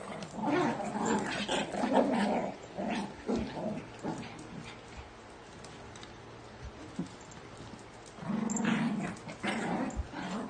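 Two small dogs play-fighting, growling and grumbling in bursts through the first few seconds and again near the end, with a quieter stretch in between.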